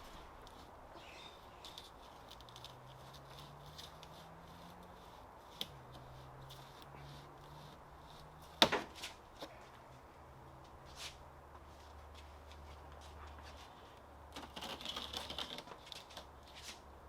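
Scattered small clicks and rattles from things being handled, with one sharp knock a little past halfway and a busier flurry of clicks near the end.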